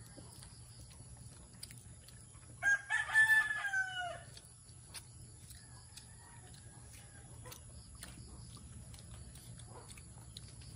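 A rooster crowing once, about two and a half seconds in: a single call of about a second and a half that drops in pitch at the end.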